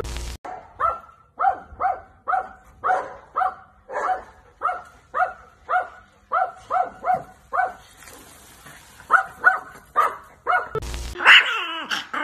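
A dog barking over and over, about two barks a second, with a short pause about two-thirds of the way through. A brief burst of static-like noise comes at the start and again near the end.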